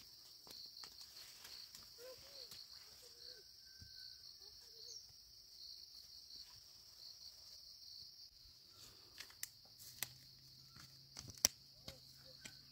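A steady high-pitched drone of insects, with light footsteps on a dirt hillside path over the last few seconds, including one sharper snap of a twig or dry stalk underfoot.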